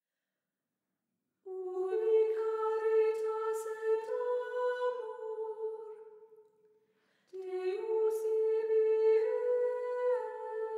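A cappella voices singing softly in two held phrases, the first starting about a second and a half in and the second a little past the middle, with a short pause between. Within each phrase the pitch steps up partway through.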